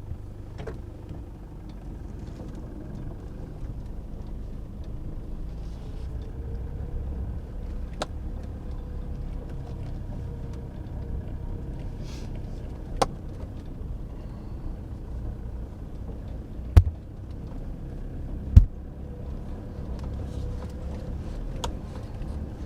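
Car cabin noise while driving: a steady low road-and-engine rumble, with a few sharp knocks and two louder thumps in the last third.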